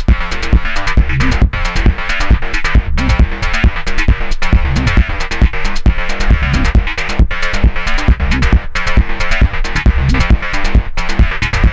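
Electronic dance music from a Korg Volca synthesizer, with a steady drum-machine beat over a repeating bass line.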